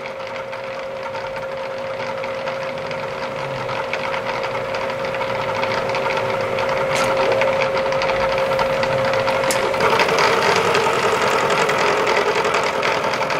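Milling machine running, its cutter facing a metal part flat: a steady whine over a dense cutting noise that grows louder as the cut goes on. It is a heavy cut, deep enough that the part is close to being torn out of the vise.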